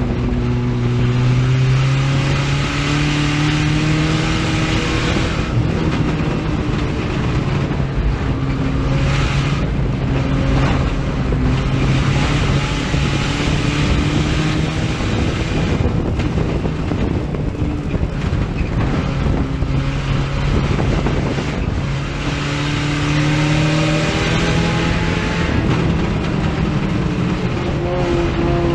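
Four-cylinder dirt-track race car engine heard from inside the cockpit at racing speed. It revs up hard and eases off over and over, with steady tyre and wind noise underneath.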